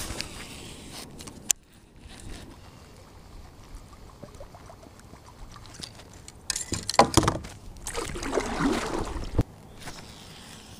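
Kayak paddling: paddle strokes splashing and water sloshing around the hull, mixed with knocks and clicks of gear being handled. The loudest splashing comes about seven to nine and a half seconds in.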